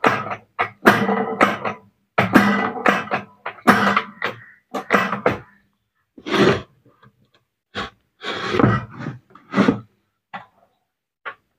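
Irregular metallic clanks and twanging rattles from hands working the inside of an electric rice cooker: the cook-switch lever and metal parts are bent and knocked about. The clanks are dense for the first five or six seconds, then come as separate knocks about a second apart.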